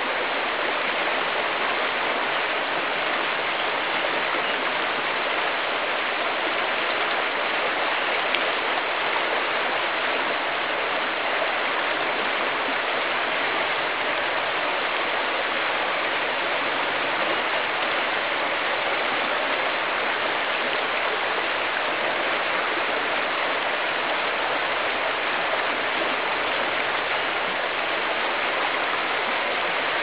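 Creek rapids: water rushing steadily over rocks.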